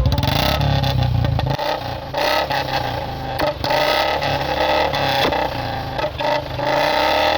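Motorcycle engine running loudly and revving.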